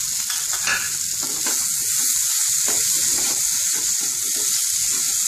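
Cut okra frying on full flame in a nonstick pan: a steady sizzle, with a spatula repeatedly scraping and stirring through the pieces.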